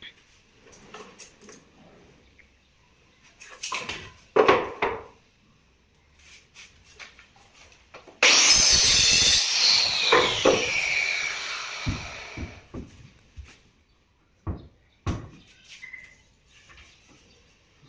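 Small handheld electric saw starting suddenly and cutting through a wooden board for about two seconds, then its whine falls away as the blade spins down. Scattered wooden knocks and clicks from boards being handled come before and after the cut.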